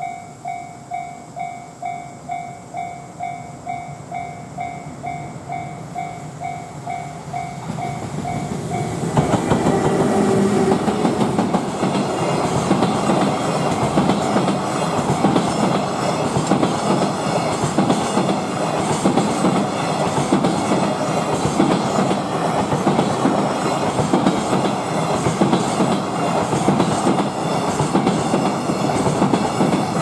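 Level-crossing warning bell ringing about twice a second. About nine seconds in, a long freight train of container wagons arrives and passes close by, its wheels clattering steadily over the rail joints.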